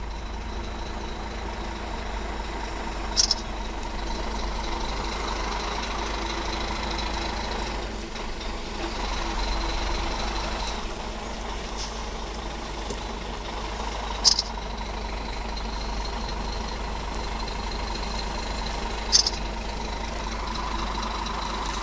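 Truck engine running at low speed, heard from inside the cab as a steady hum. Three short high-pitched hisses stand out, about three, fourteen and nineteen seconds in.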